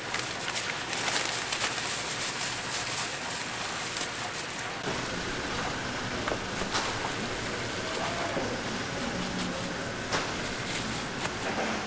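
Chicken deep-frying in a cauldron of hot oil, a steady sizzle, with a few sharp clicks of utensils.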